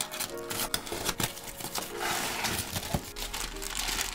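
Packing tape being picked and peeled off a cardboard box, with many small crackles. From about halfway in, plastic wrapping and bubble wrap crinkle as they are pulled out of the box.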